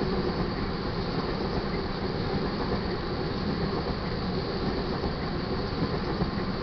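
Freight train's tank cars rolling past on the main track: a steady, unbroken noise of steel wheels running on the rails.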